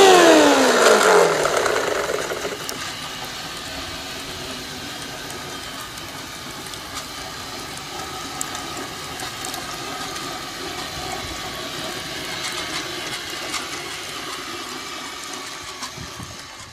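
Whining motors and gears of a garden-railway rotary snow plough train, loud as it passes close and falling steeply in pitch and fading over the first two seconds as it moves away. After that it keeps running more quietly with light ticks and rattles from the track, until the sound cuts off suddenly at the end.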